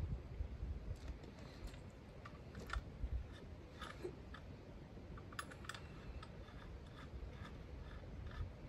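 Scattered light clicks and taps of small objects being handled by hand, over a steady low rumble.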